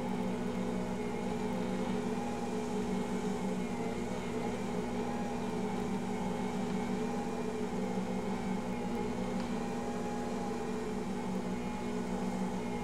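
Ankarsrum stand mixer running steadily with its dough hook, a constant motor hum as it kneads bread dough.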